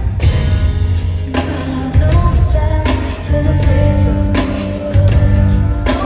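Live gospel-pop ballad: a female lead singer holding long notes over a band with heavy bass and drums, with backing singers.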